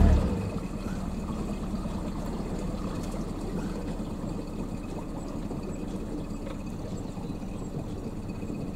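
A Norman 20 cruiser's engine is throttled back sharply right at the start, then runs at a low, steady idle with water gurgling and lapping at the hull as the boat coasts slowly.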